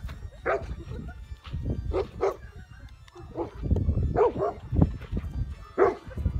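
Bernese mountain dogs barking: about a dozen short barks at irregular intervals, several coming in quick pairs.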